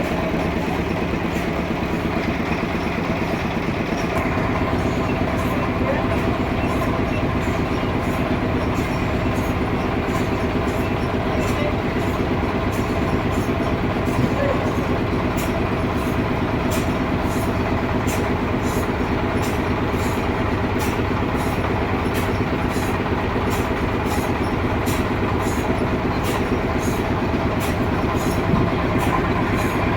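Sawmill running steadily as it saws a trembesi log, a continuous mechanical drone. From about eight seconds in, faint regular ticks come in at roughly two a second.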